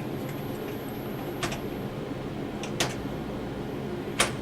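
Three sharp, evenly spaced clicks about a second and a half apart, over a steady hum. They come as the Techno CNC router's axis is jogged one thousandth of an inch at a time against the edge of the workpiece.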